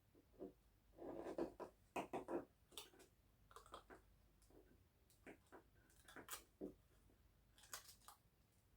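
Faint scattered clicks and brief scrapes of plastic controller parts being handled and pressed together during reassembly of an Xbox One S controller, with a short scraping rub about a second in.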